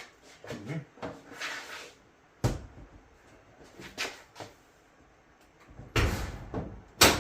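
Dryer's sheet-metal top panel being slid on and seated: a short scrape, then a series of metal clunks and knocks, the loudest two close together near the end.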